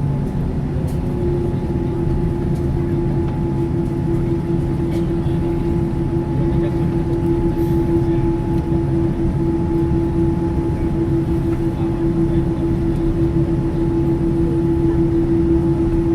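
Boeing 787 engines running at a steady setting: a low rumble with a constant droning hum that sets in about a second in, with no rise in pitch.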